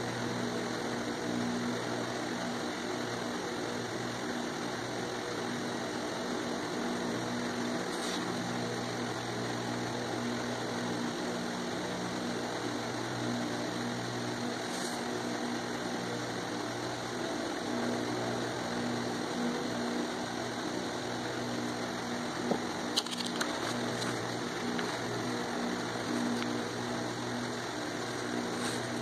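A steady machine-like hum that holds an even level throughout, with a few short, faint clicks spaced several seconds apart.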